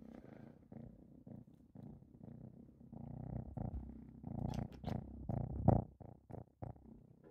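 A cat purring close by, swelling and fading with each breath. A few sharp clicks come through it, and there is one loud knock about five and a half seconds in.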